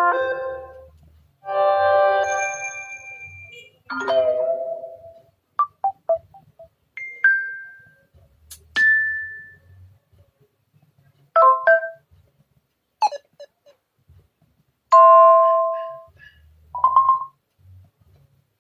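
Samsung Galaxy Tab A8 10.5 (2021) preset tones played one after another: about a dozen short chimes and electronic tones, each a second or two long or less, with brief silences between them.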